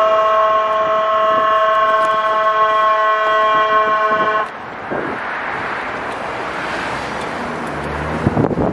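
A horn sounding one steady multi-tone chord for about four and a half seconds, then cutting off abruptly, followed by wind and road noise.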